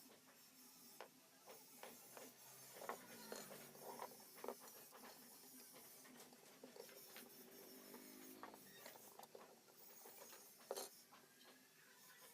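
Near silence with faint, scattered clicks and light taps of small objects being handled.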